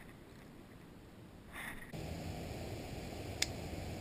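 A short water splash about a second and a half in as a hand-held carp is let go into the water. Then a steady outdoor hiss with one sharp click shortly before the end.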